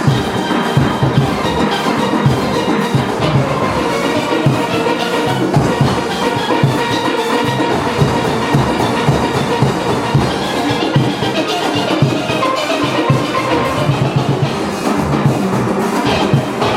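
A steelband plays steel pans, with a steady drum beat underneath.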